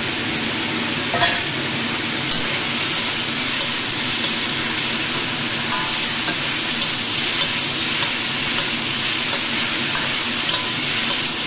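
Mushrooms and beef strips sizzling steadily in a hot wok, stir-fried with a metal wok spatula scraping and tossing them against the pan.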